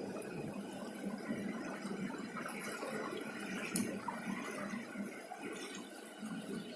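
Swollen floodwater of a river running steadily, an even rushing wash of water.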